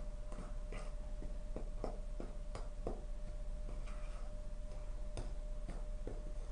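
Wooden spatula stirring dry flour in a plastic container: irregular light taps and scrapes of the wood against the plastic, several a second, over a faint steady hum.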